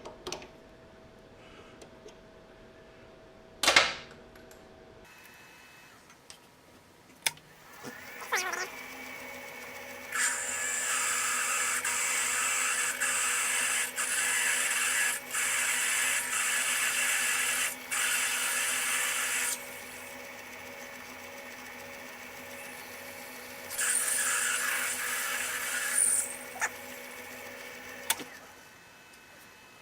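South Bend Heavy 10 lathe starting up about eight seconds in and running with a steady hum, while an F-size drill cuts the tap hole for a 5/16 coarse thread. The drilling comes in two stretches, a long one and then a shorter one, and the lathe shuts off near the end. A single sharp knock is heard about four seconds in.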